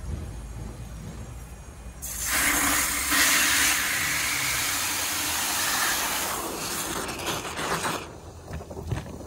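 Water from a hose running hard into a bucket of car shampoo, whipping it into foam. The steady hiss of the water starts suddenly about two seconds in and stops about six seconds later.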